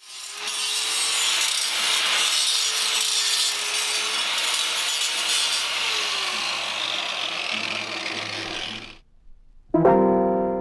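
Arc welding on a steel bicycle frame: a steady crackling hiss with a low hum under it, lasting about nine seconds and then stopping. About a second later a piano starts playing.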